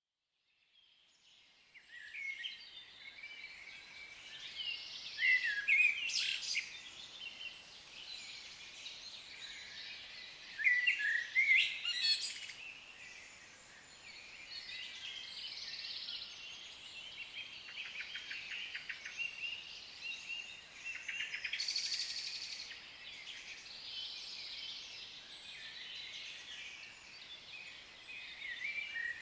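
A chorus of forest birds singing and calling, many chirps and whistles overlapping, fading in over the first two seconds, with a few louder bursts of song and some fast buzzy trills later on.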